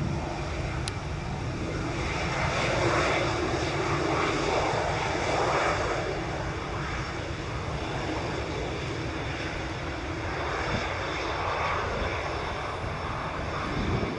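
Airbus A320 jet engines running as the airliner rolls along the runway after landing. The steady jet noise swells for a few seconds, then settles back to a slightly lower level.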